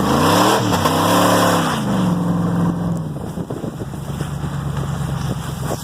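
1999 Ford F-150 pickup's engine revving hard twice in quick succession, with a rushing noise while the revs are high. It then drops back to a lower, steadier run.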